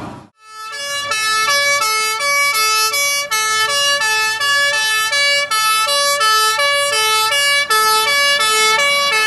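Fire engine's two-tone siren sounding, switching back and forth between a lower and a higher note about twice a second.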